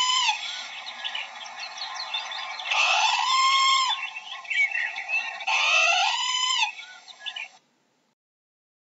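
Parrots calling: three loud, drawn-out squawks about two and a half seconds apart, with shorter chirps and squeaks between them.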